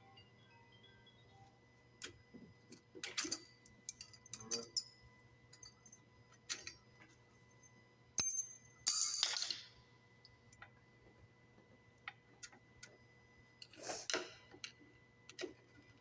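Scattered metal clicks and clinks of hand tools and brake caliper parts being handled, with louder scraping sounds about three, nine and fourteen seconds in.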